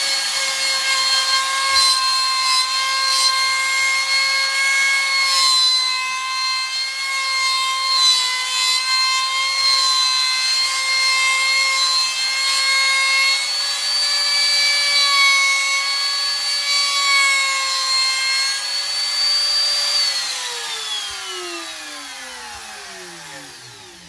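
Compact handheld router running at full speed with a steady high whine, the bit scraping and biting unevenly into the wood as it cuts a pocket for a bowtie inlay. About 20 seconds in it is switched off, and its pitch falls steadily as the motor winds down.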